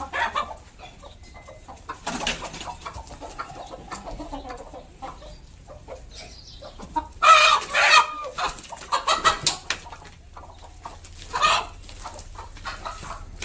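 Domestic chickens clucking in short, scattered calls, with the loudest burst of calls about seven seconds in.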